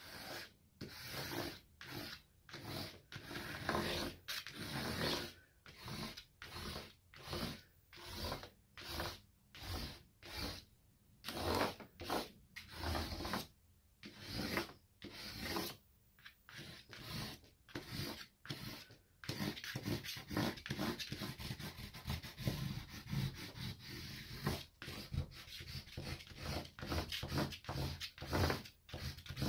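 A black charcoal-type drawing stick dragged across a large sheet of 200gsm cartridge paper, in separate strokes about every half second. About two-thirds of the way through the strokes turn quicker and denser, as in cross-hatching.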